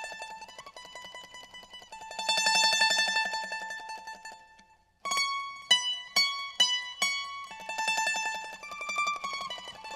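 Background instrumental music: a melody of rapidly repeated plucked notes that fades out about halfway through. After a brief near-silent gap, a few single sharp notes sound, and then the rapidly repeated melody returns.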